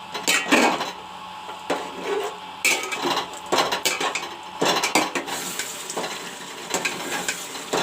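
Chicken pieces and masala paste frying in hot oil with a steady sizzle, while a utensil stirs and scrapes against the pan in a dozen or so irregular strokes as the chicken browns.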